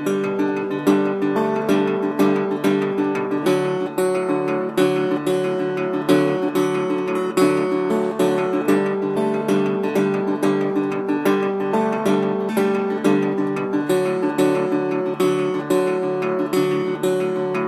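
Acoustic guitar strumming chords in a steady, even rhythm, with no singing.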